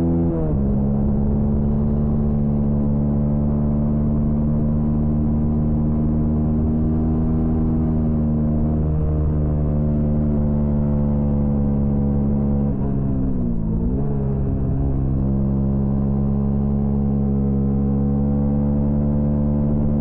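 Honda CB125R's single-cylinder 125 cc engine running hard at high revs. Just after the start the pitch drops once and settles, as on an upshift. About 13 seconds in the revs briefly dip and climb back.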